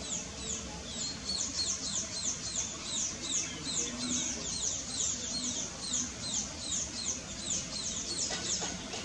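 Small birds chirping in the canopy: a steady stream of short, high notes, each sliding downward, several a second.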